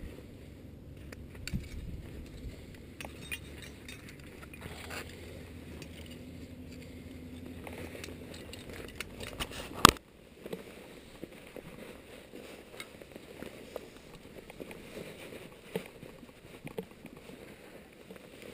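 Climbing gear being handled: scattered small clinks and scrapes of carabiners, rope and a fixed steel cable. A low rumble runs under the first half, and one sharp click comes about ten seconds in.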